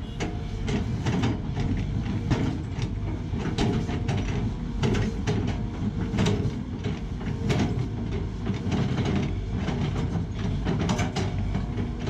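Sany SY215C hydraulic excavator running under load as its bucket works the dirt of an embankment slope, with a steady engine rumble and frequent irregular clanks and knocks from the bucket and linkage.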